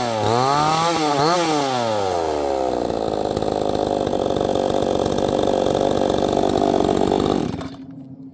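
68 cc two-stroke chainsaw revving up and down in quick throttle blips, then dropping in pitch and running rough and steady under load as it cuts into wood. It stops suddenly near the end.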